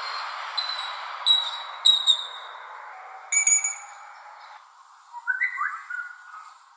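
Parrot mimicking electronic sounds: a run of short, high beep-like whistles, a louder lower note about three seconds in, then a few quick rising whistled glides near the end.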